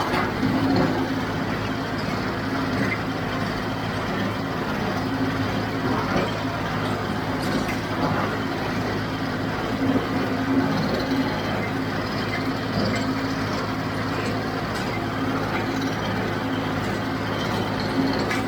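John Deere 5055D tractor's three-cylinder diesel running steadily under load, pulling a JD 348 small square baler as it bales hay. A few short knocks stand out over the engine drone.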